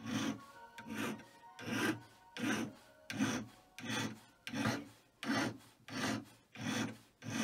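Flat hand file rasping across the end of a small silver tube held in pliers, in even back-and-forth strokes about one and a half times a second.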